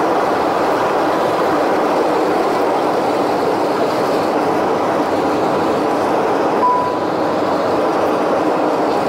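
Airliner cabin noise on the runway: a steady, loud rush of engine and air noise heard from inside the cabin. A brief single beep sounds about two-thirds of the way through.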